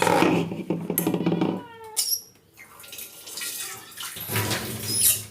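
Water running and splashing in a kitchen sink, in two spells: a loud one lasting about a second and a half at the start and a shorter one near the end, with a click between them.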